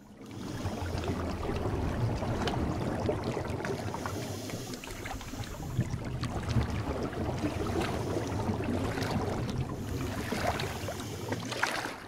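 Ocean waves heard from underwater: a steady rush of moving water with a low rumble and many small crackles. It rises in over the first second and fades out at the very end.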